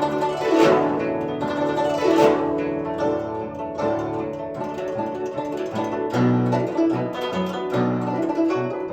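Instrumental music led by plucked strings, with a run of short repeated low notes in the second half.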